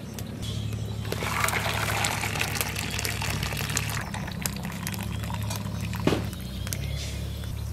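Hot cooking water from boiled pumpkin stems and greens poured through a metal colander into a bowl, splashing strongly for a few seconds and then trickling away. A single knock comes about six seconds in.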